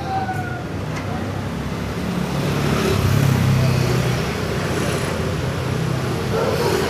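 Road traffic: a motor vehicle's engine running close by, swelling to its loudest about three seconds in and then easing off, over a steady street din.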